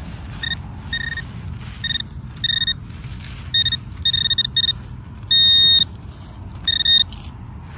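Metal detector beeping over a buried target: a string of short, same-pitched beeps at uneven intervals and one longer held tone about five and a half seconds in, as the target is pinpointed. The target read 12–13 on the detector, which is typical of a pull tab.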